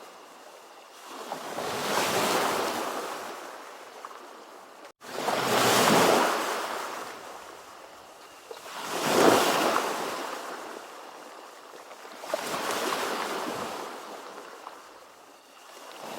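Ocean surf: about four waves break and wash in one after another, each swelling and fading over two to three seconds. A brief dropout cuts the sound about five seconds in.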